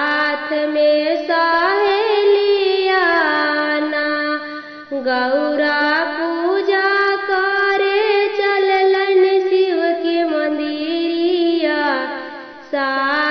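A woman singing a traditional Bhojpuri Teej vrat folk song in long, drawn-out, sliding phrases. The song pauses briefly about five seconds in and again near the end.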